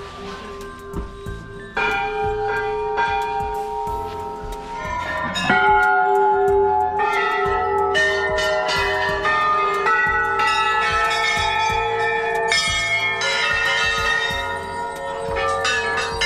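Many temple bells struck again and again, their ringing overlapping into a continuous clangour. It gets louder about two seconds in and again around five and a half seconds in.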